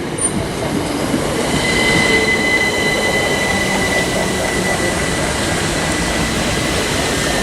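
Class 387 electric multiple unit running through the platform with a steady rumble; about a second and a half in, a steady high-pitched squeal sets in and holds.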